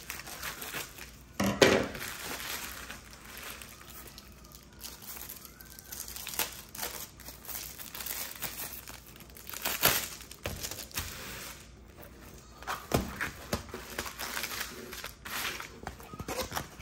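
Plastic bubble mailer being cut open with scissors and handled, then a plastic-wrapped kit pulled out, with irregular crinkling and rustling of the plastic. The loudest crackle comes about a second and a half in.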